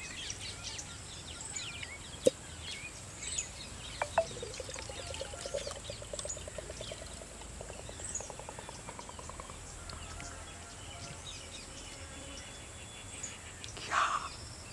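Rural outdoor ambience of small birds chirping, with a fast trill that slowly rises in pitch for about five seconds and a couple of sharp clicks.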